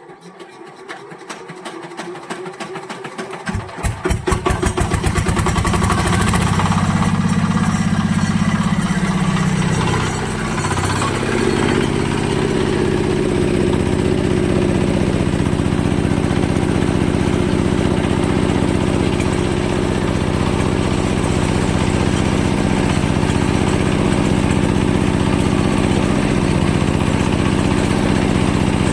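A machine engine starting up: separate firing strokes quicken over the first five seconds until it settles into steady running, with a brief dip about ten seconds in.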